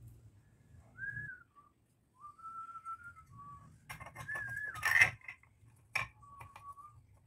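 Someone whistling a few short, held notes that step up and down, over clicks and handling noise from the chandelier's metal canopy cover being pushed up and screwed on. A sharp knock about five seconds in is the loudest sound.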